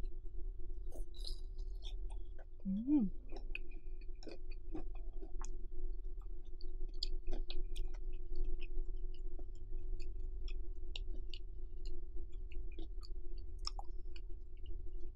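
Close-miked chewing of fried pork cutlet, with many short wet mouth clicks scattered through and a short hum from the eater about three seconds in. A steady low hum runs underneath.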